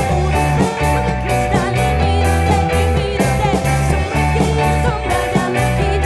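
Live rock band playing: drum kit, electric guitars and keyboards over a strong low end, with a steady beat about twice a second and a male lead vocal.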